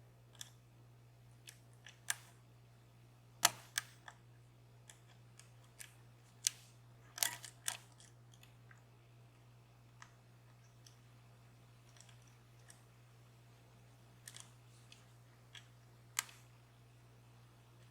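Lock pick and tension wrench working inside a DOM Plura lock's keyway: small metal clicks and ticks at irregular intervals, a few of them sharper, as the pick works past the warding.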